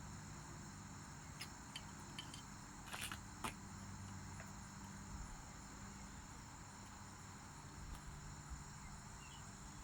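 Quiet steady background with faint crickets chirring and a few soft clicks around three seconds in.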